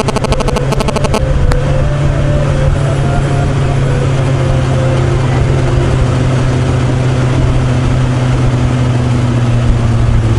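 Suzuki GSX400F four-cylinder motorcycle engine running steadily while the bike is ridden, with wind and road noise rushing over the microphone. Music cuts off about a second in.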